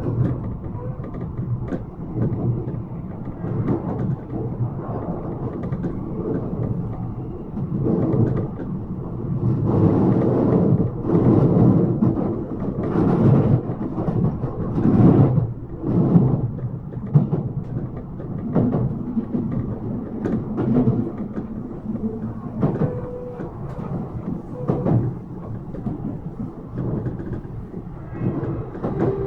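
Yokohama Minatomirai Railway Y000 series electric train running between stations, heard inside the car: steady rumble of wheels on rail with irregular clattering knocks, and a few brief tones near the end.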